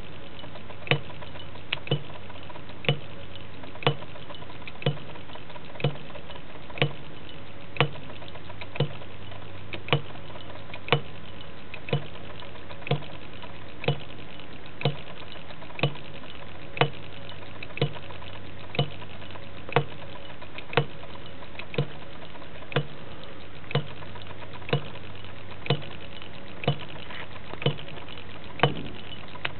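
Model solenoid engine with a hit-and-miss cam slider running: a sharp click about once a second as it fires, over a steady low hum. The slider shifts the cam to skip power strokes, so it fires only now and then instead of every revolution.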